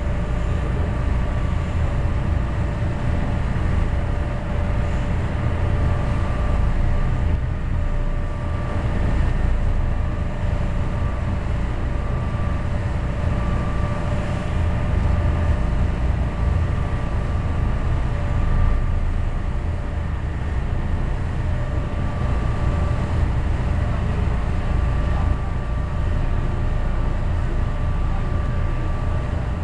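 A boat's engine running steadily under way: a constant low rumble with a steady droning hum, mixed with the noise of wind and water moving past the boat.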